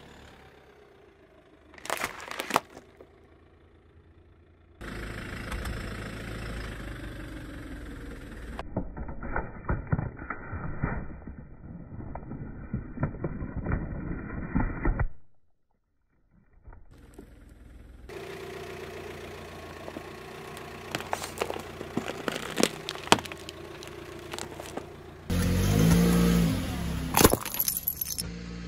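Car tyre rolling over and crushing objects in a string of short clips: plastic crackling and crunching, and sharp cracks and snaps of things breaking. Several abrupt cuts, with a moment of dead silence about halfway through. The loudest crushing comes near the end.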